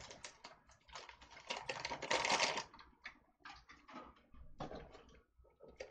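Plastic seasoning sachet crinkling and being torn open by hand: a run of small crackles, thickest and loudest about two seconds in.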